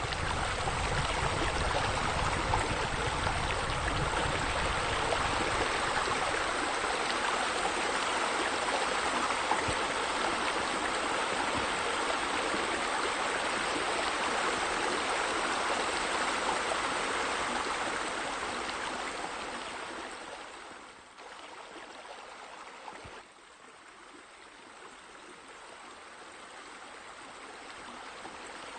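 Running water: a steady splashing rush, which drops away abruptly about two-thirds of the way through and slowly builds back near the end.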